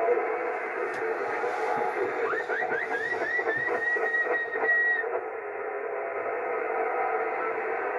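CB (11-metre band) radio receiver playing band noise: steady, narrow hiss with faint steady tones in it. From a little over two seconds in, a run of short rising tones settles into a held whistle that cuts off about five seconds in.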